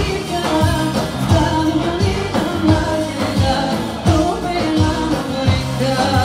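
A live band with a singer performing a song over a steady beat of about two strokes a second.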